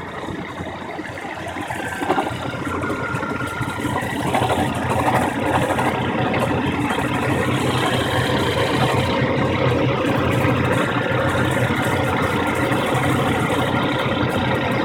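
1997 Chevy S-10's 2.2-litre four-cylinder engine running. It gets louder over the first few seconds, then holds steady.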